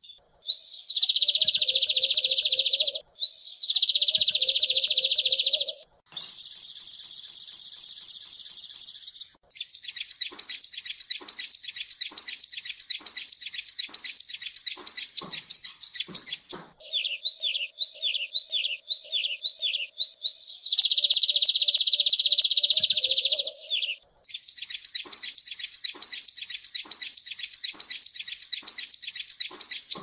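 Sunbird song, loud and high: a string of buzzy trills and a very high trill, then long runs of rapid repeated chattering notes, with a stretch of quick down-slurred notes in the middle.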